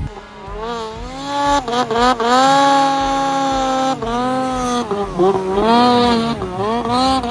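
Ski-Doo mountain snowmobile engine revving up and down repeatedly as the rider works the throttle through deep powder, its pitch rising and dipping every second or so.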